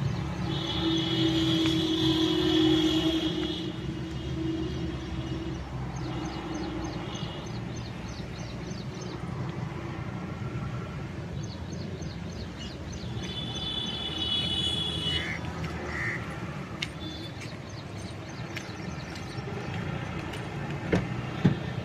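Steady vehicle rumble of passing traffic, with two spells of long, high, steady tones and a couple of sharp clicks near the end.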